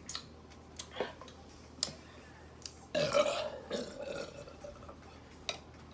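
A woman's long burp, about three seconds in and lasting over a second, after a drink of Coke Zero. A few light clicks come before it.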